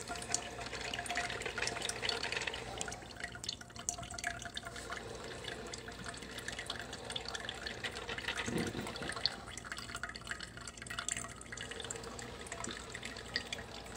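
PowerXL Grind & Go coffee maker brewing: hot coffee trickling and dripping steadily from the filter basket into the mug.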